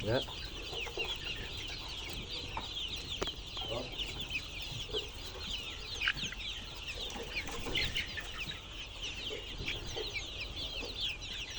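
A flock of chicks peeping continuously, many short high-pitched peeps overlapping, with a few lower calls now and then.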